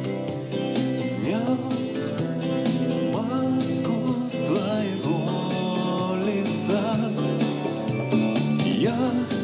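A song mix playing back: a male lead vocal, double-tracked and run through compression, reverb and delay, singing over a backing track with a steady beat.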